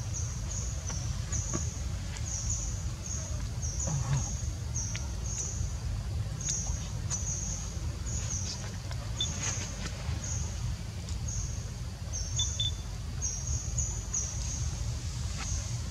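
Insects chirping in a steady rhythm, short high chirps about two or three a second, over a steady low rumble.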